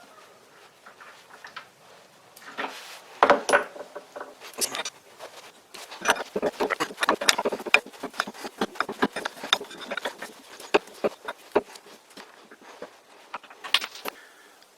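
Hand tools and small cast-iron and steel lathe parts clinking and clicking irregularly while the threading mechanism is taken off the rear of a lathe spindle. The knocks start about two seconds in, come thickest in the middle, and bunch again near the end.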